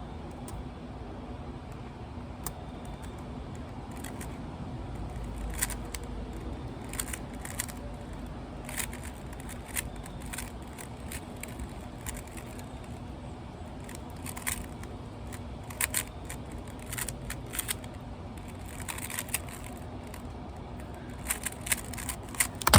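Rubik's cube being turned quickly: irregular clicks and clacks of the layers snapping round, in quick runs, over a faint steady hum.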